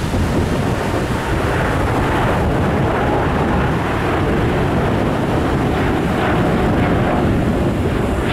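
A Boeing 787 Dreamliner's twin jet engines at takeoff thrust as it climbs out overhead: a steady, loud roar with a deep rumble underneath.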